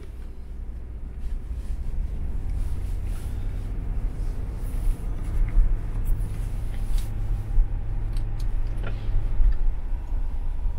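A car driving along: low road and wind rumble that builds over the first couple of seconds and then holds steady, with a few faint clicks.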